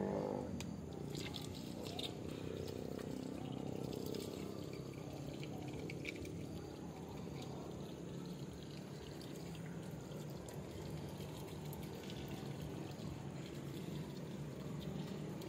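Water running and trickling steadily from the open end of a small pipe line after a water meter, a test of whether the line delivers water. A few faint clicks of handling sound over it.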